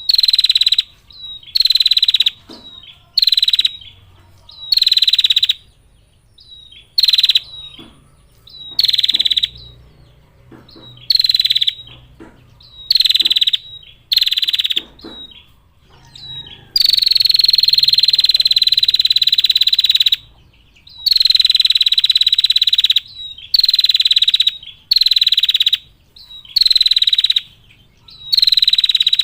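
A female prinia repeatedly giving its high, rapid trilling 'ngetir' call: runs of about a second at a steady pitch, separated by short gaps, with one long run of about three seconds about two-thirds of the way through.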